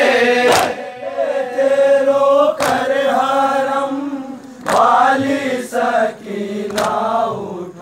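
A man chanting an Urdu noha (Shia lament) in long, held, wavering lines. About every two seconds it is cut by a sharp slap: the mourners striking their chests together in matam, keeping the beat.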